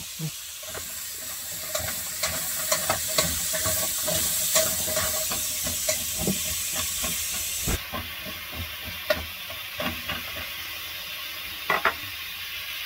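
Diced vegetables sizzling as they are briefly sautéed in a stainless steel pot on a gas burner. A spatula stirs them, scraping and clicking against the pot. About eight seconds in, the sizzle drops off and only occasional clicks remain.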